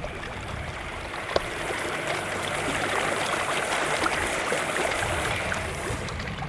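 Water hissing and spraying from a bad leak in an irrigation riser pipe where it comes out of the ground, louder around the middle, with a single sharp click about a second and a half in.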